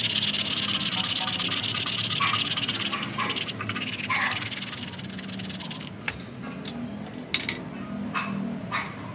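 Metal tool scraping and raking soil out of the root mass of a dug-up ficus stump, a fast scratchy scraping that stops a few seconds in, followed by scattered crackles and snaps as a gloved hand pulls at the dry roots and dirt.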